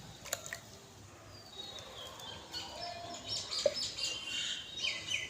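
Small birds chirping: a run of short, quick, high calls that grows busier from about two seconds in.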